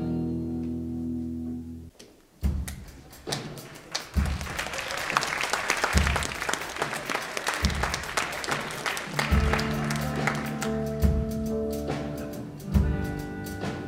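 Live band music: held chords stop about two seconds in, then audience applause over a steady bass-drum beat, with the band's chords coming back in about nine seconds in.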